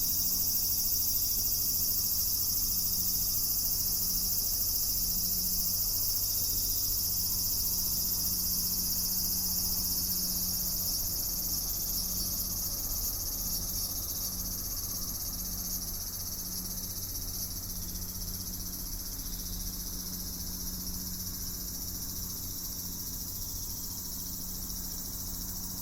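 Cicadas shrilling in a steady, high-pitched chorus that gradually fades somewhat from about halfway through.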